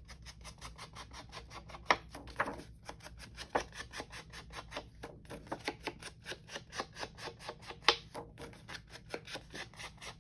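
Ink pad dabbed again and again along the cut edges of paper, about five light taps a second, with a few sharper knocks about two seconds in and near the end.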